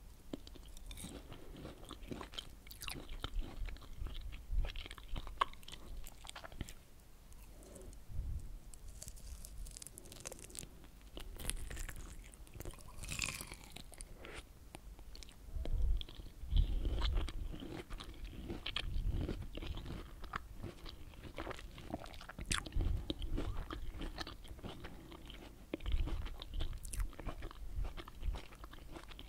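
Close-miked eating sounds: biting into and chewing pieces of pomelo flesh, with many small, sharp mouth clicks throughout.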